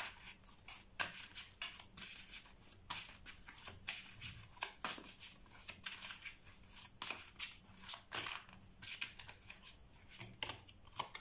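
Tarot cards being shuffled by hand: a run of crisp, irregular card clicks and flicks, several each second.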